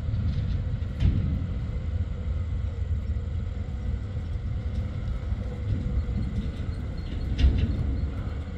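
Heavy tipper truck's diesel engine running as it drives off-road, a steady low rumble with a couple of sharp knocks, about a second in and again near the end.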